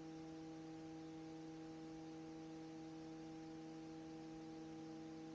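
Faint, steady electrical hum with a few fixed tones over a low hiss, unchanging throughout.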